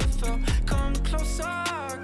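Background pop / hip-hop song with a steady drum beat, deep bass and a sung vocal.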